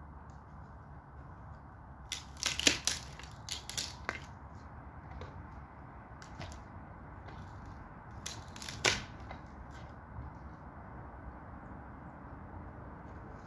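White bed-frame boards cracking and snapping as they are broken apart: a quick run of sharp cracks about two to four seconds in, a few lighter snaps, then one loud crack near nine seconds.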